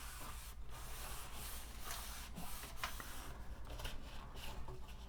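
Wiping and rubbing inside a sheet-metal computer case during cleaning, in short uneven strokes, over a low steady hum.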